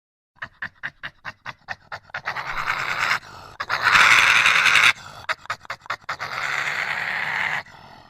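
Creature sound effect of animal breathing: a quick run of short panting breaths, then long hissing breaths, the one about four seconds in the loudest.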